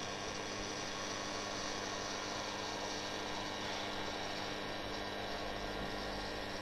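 DC TIG welding arc on a longitudinal seam welder, running in non-pulse mode. It gives a steady, even hiss over a constant electrical hum, with no pulsing rhythm.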